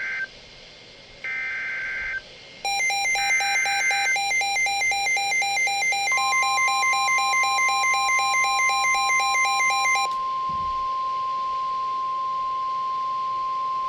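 An Emergency Alert System activation on NOAA Weather Radio. Three short screechy digital header bursts in the Specific Area Message Encoding system come first. A rapidly pulsing electronic alarm beep follows for about seven seconds. Overlapping it, from about six seconds in, comes the steady single-pitch weather radio warning alarm tone, which holds to the end. Together they signal a new special marine warning.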